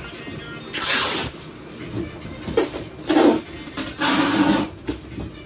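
Cardboard boxes and plastic packaging being handled, with three or four short bursts of rustling and scraping a second or two apart.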